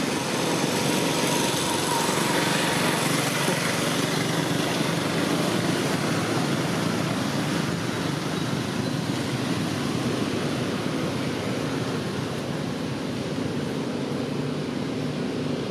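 A small engine running steadily, a constant drone with a hiss over it.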